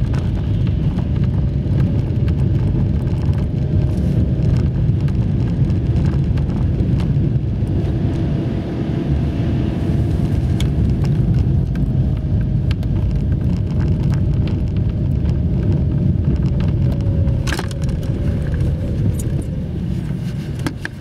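Car driving, heard from inside the cabin: a steady low rumble of engine and road noise, with a single sharp click about 17 seconds in.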